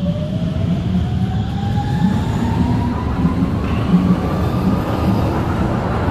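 Electric train accelerating: its traction motors give a whine that rises steadily in pitch, over a steady rumble of wheels on the rails.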